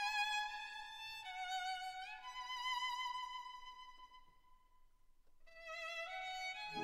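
Background music: a slow violin melody of long held notes sliding from one to the next, fading almost to silence about five seconds in before picking up again.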